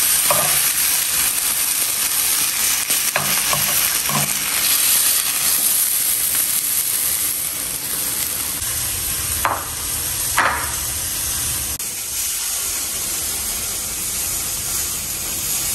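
Banana-leaf parcels of fish (pepes ikan) sizzling in oil in a non-stick frying pan, a steady frying hiss. A few short clicks and knocks of metal tongs on the pan come near the start, around three to four seconds in, and twice around ten seconds as the parcels are turned and lifted out.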